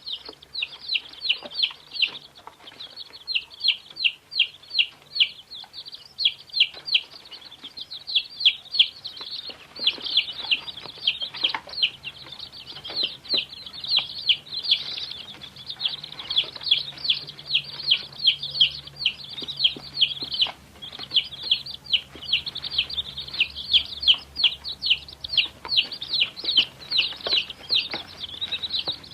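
Domestic chicks peeping continuously: a dense chorus of short, high, falling cheeps, several a second, overlapping without a break.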